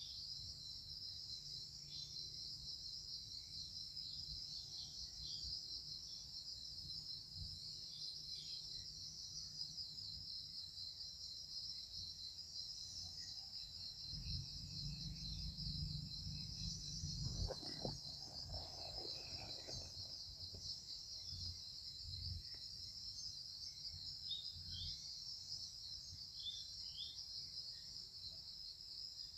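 High-pitched, steady chorus of insects. About halfway through, a low rumble swells for a few seconds, with a few sharp knocks.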